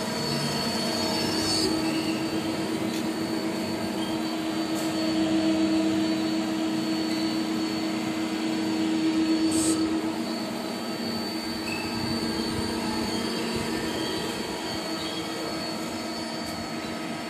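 Mazak QT-20 CNC lathe powered up and running: a steady mechanical hum with a thin high whine above it, growing louder twice for a second or two.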